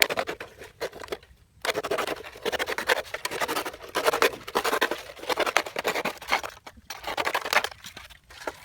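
Rapid scratching and rustling in about five bursts of one to two seconds each, with short gaps between them.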